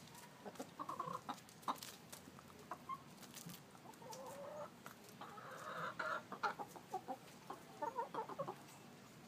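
Several chickens clucking close by in short calls, with a longer drawn-out call about four to six seconds in and a quick run of clucks about eight seconds in, plus a few sharp clicks.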